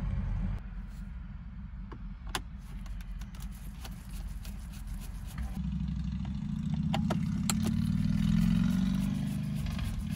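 A low engine rumble runs throughout and grows louder in the second half. Over it come a few light clicks of a screwdriver working the screws of the instrument cluster.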